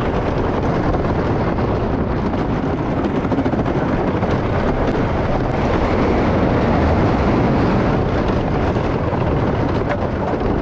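Steady, loud rushing noise from a camera riding a roller coaster: wind on the microphone mixed with the rumble of the moving ride.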